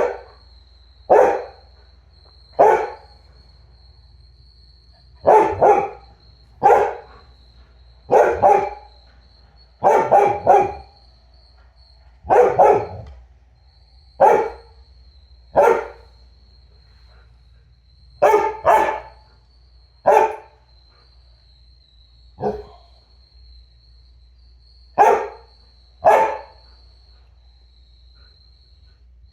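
A dog barking repeatedly, in single barks and quick pairs every second or two with a few short pauses. A faint steady high-pitched tone runs underneath.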